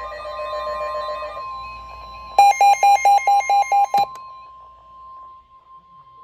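NOAA Weather Radio's steady 1050 Hz warning alert tone, sounding ahead of a warning message and fading out near the end. It is overlaid at first by a warbling electronic tone, then by a burst of eight loud, rapid electronic beeps from a second alarm, the loudest sound here.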